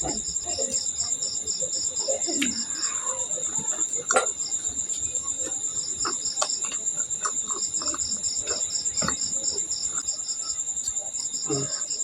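Crickets chirping: a steady high trill with a pulsing chirp about five times a second that pauses briefly now and then. Over it come scattered short clicks and soft mouth and utensil noises of someone eating.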